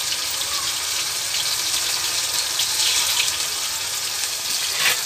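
Cornflour- and rawa-coated bombil (Bombay duck) fish shallow-frying in hot oil: a steady hissing sizzle with scattered small pops, one louder near the end.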